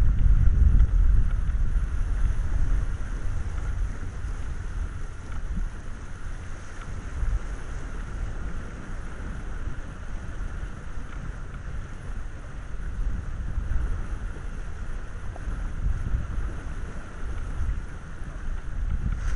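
Wind buffeting the microphone aboard a sailing keelboat under way: a gusty low rumble, heaviest in the first two seconds and then easing to a steady level.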